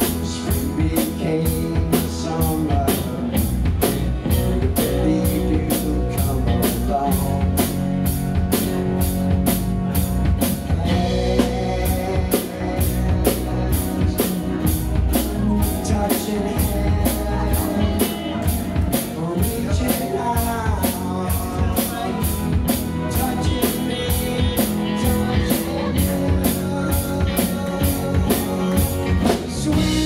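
Live rock band playing, a drum kit keeping a steady beat under bending pitched lines.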